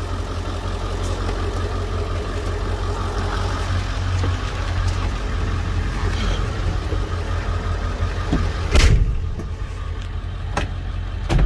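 A 1997 Ford E-350's 7.3-litre Power Stroke turbo-diesel V8 idling steadily, heard from inside the cab, with a single sharp thump about nine seconds in.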